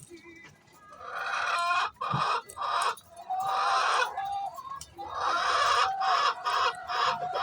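Domestic hen calling loudly in three runs of quick, harsh clucks, the noisy cackle a hen makes before laying an egg.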